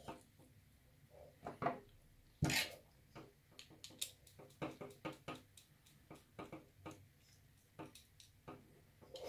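Small irregular clicks and taps of wires, a plastic lamp holder and a screwdriver being handled on a wooden desk while wiring a light switch, with a louder knock about two and a half seconds in.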